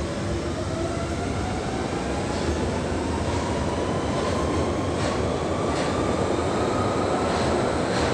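London Underground 1992 Stock Central Line train pulling out of a deep-level platform and gathering speed: continuous rumble with a whine that rises steadily in pitch as it accelerates, and a few wheel clacks in the second half.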